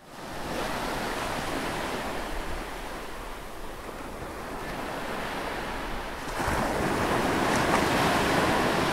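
Ocean waves washing in, a steady surf that swells louder about six seconds in.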